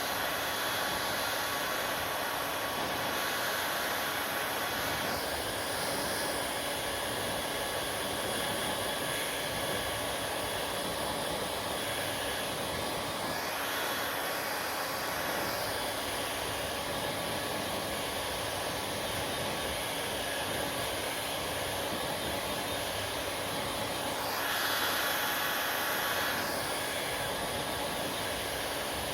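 Hair dryer running steadily: a continuous rush of air with a faint motor whine. It steps up in loudness at the start and swells for about two seconds near the end.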